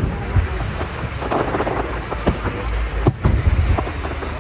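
Aerial fireworks shells bursting: a string of sharp bangs over a low, rolling rumble, with bangs at the very start and again around three seconds in.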